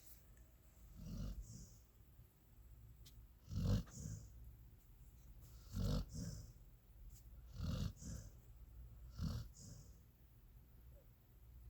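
Small dog snoring in its sleep: five snoring breaths about two seconds apart, each followed by a short high hiss.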